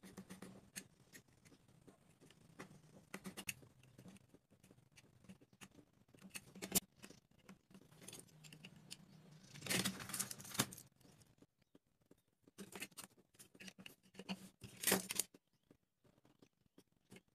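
Handling noises of craft work with popsicle sticks and small tools on a tabletop: scattered clicks and light taps, with a longer scraping rustle about ten seconds in and another near fifteen seconds.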